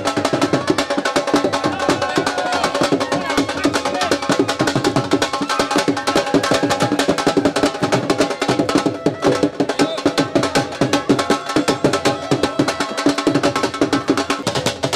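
Dhol drums played in a fast, driving rhythm: a dense, continuous stream of sharp strikes.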